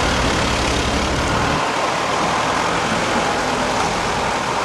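Diesel engines of a tracked excavator and a backhoe loader running while they dump fill along a river bank, the deep engine throb dropping away about a second and a half in. Under it, the steady rush of a flooded river.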